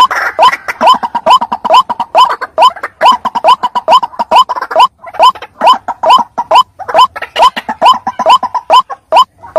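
White-breasted waterhen calling: a long, steady series of short rising "ruak" notes, about three a second, denser and overlapping in the first half and more spaced near the end. It is the bird's territorial call as used for luring waterhens.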